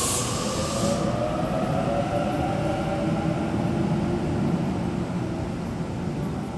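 Sydney Trains Tangara (T set) double-deck electric train pulling away from the platform: a rising whine from its motors over the steady rumble of the wheels on the rails. A high hiss stops about a second in.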